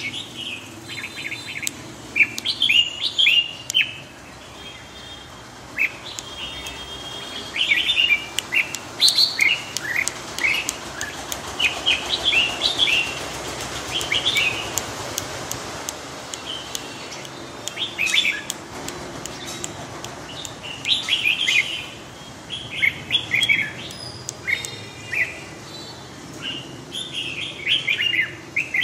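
Red-whiskered bulbul singing in quick, chirpy warbled phrases, coming in clusters with short pauses between them.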